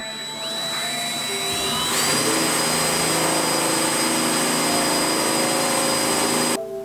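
Cordless drill boring through a car's body panel: the motor's whine rises in pitch over the first two seconds as it speeds up, then holds steady, and cuts off suddenly near the end.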